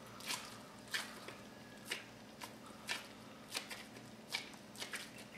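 Gloved hands squeezing and patting a ball of raw ground pork stuffed with fillings, giving faint, irregular wet squishes and clicks about once or twice a second.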